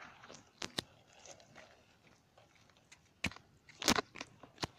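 Footsteps crunching on a gritty dirt path: a few sharp, irregular crunches and clicks, the loudest about four seconds in.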